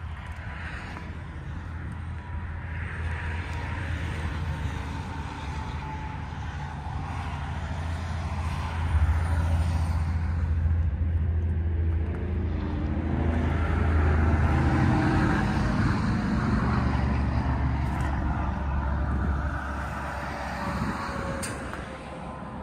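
Road traffic going past on a highway, heavy trucks among it. A low rumble swells to its loudest about halfway through and eases off near the end, with a faint tyre whine that slowly drops in pitch.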